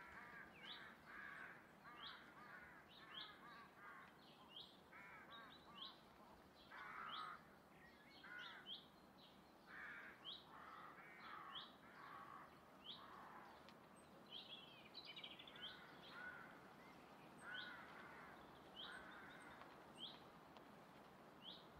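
Faint woodland birdsong: a short high chirp repeated every second or so, with lower calls from other birds scattered between.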